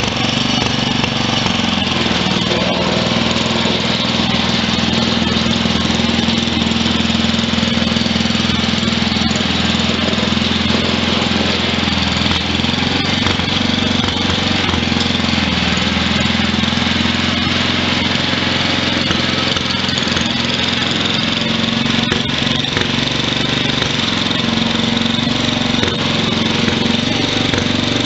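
1963 Wheel Horse 633 garden tractor engine running steadily while the tractor pushes snow with its front dozer blade. Its pitch dips briefly around the middle, when the blade shoves snow into a pile.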